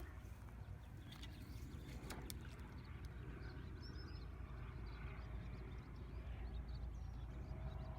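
Steady low rumble of outdoor ambience, with a bird giving a short, high three-note chirp about halfway through and a couple of faint clicks near the start.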